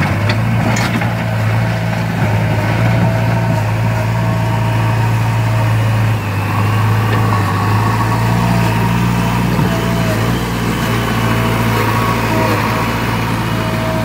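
JCB 3DX backhoe loader's diesel engine running steadily as the machine works, with a fainter wavering whine above the engine note.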